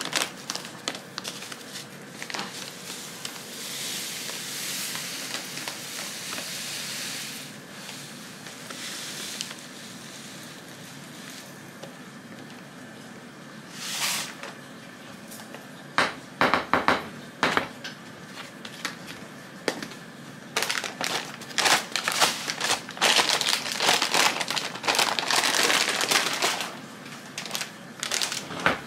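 Crinkling and rustling, as of something being handled, with a run of sharp clicks and crackly clatter in the second half.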